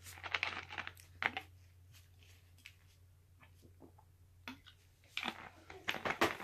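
Close crinkling and crackling handling noises from eating and from handling a drink can, in a cluster in the first second and a half and again near the end, with faint scattered ticks in between.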